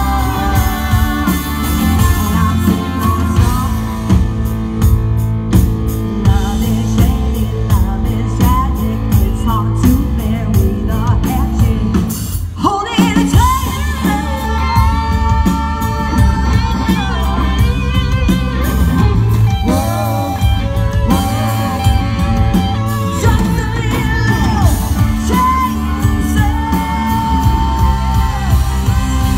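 A country band playing live with a lead singer; the music drops out briefly about halfway through.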